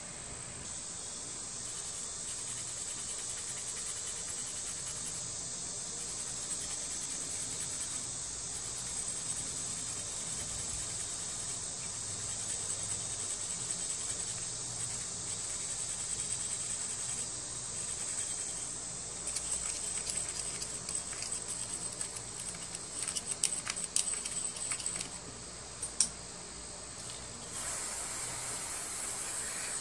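Steady high-pitched insect chirring, with irregular scratching and clicking from about two-thirds in as small carburetor parts are scrubbed with a wire bristle brush. A hiss begins near the end.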